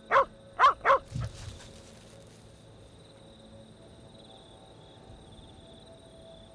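An Australian cattle dog barks three times in quick succession, sharp and loud, within the first second. Faint, steady insect chirring follows.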